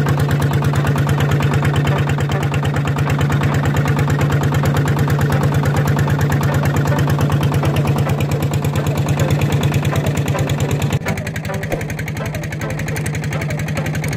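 Small wooden boat's engine running steadily under way, a fast, even putter. About 11 seconds in it becomes a little quieter.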